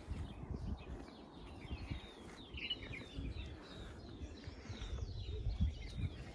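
Small birds chirping and twittering in short, repeated calls, over a low rumble.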